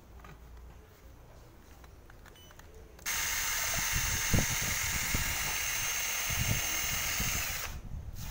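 Cordless drill motor starting about three seconds in and running at a steady high whine, spinning a cable-tie whisk to stir paint in a can, then stopping shortly before the end.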